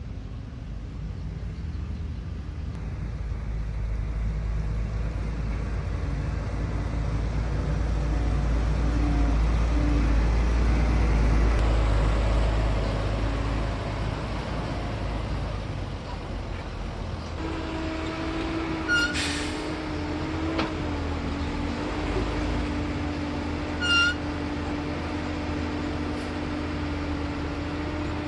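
Heavy diesel construction machinery running steadily, its low rumble swelling to its loudest about a third of the way in and easing off again. In the second half there are two brief sharp sounds about five seconds apart, the first a short hiss.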